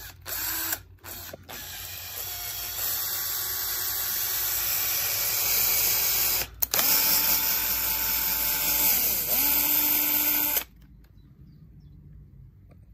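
Cordless drill/driver turning an M4 tap into a hole in a bike frame. A few short trigger blips, then two longer runs of steady motor whine with a brief stop between them. Late in the second run the whine sags in pitch under load and recovers, then it stops.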